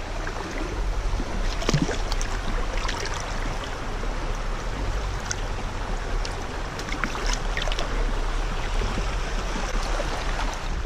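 Shallow river water rushing steadily over a rocky bed around a wader's feet, with a few small splashes as a largemouth bass is let go into the current.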